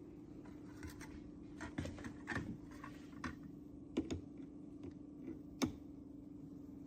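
Irregular light clicks and taps, about a dozen, over a steady faint hum; the sharpest come about four and five and a half seconds in.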